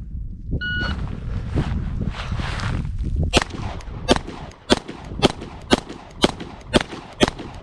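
Shot timer beeps once to start, then cover garments rustle as a 9mm Glock 17 Gen 5 fitted with a compensator is drawn from concealment. About three seconds in the pistol starts firing: eight shots, roughly two a second.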